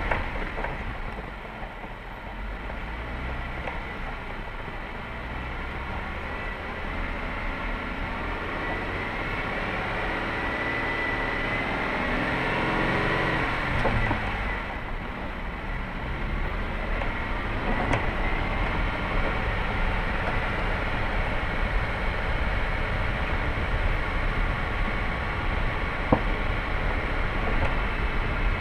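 A vehicle driving along a rough dirt and gravel track: steady engine and tyre noise. The engine note rises and falls about halfway through, and there is one sharp tick near the end.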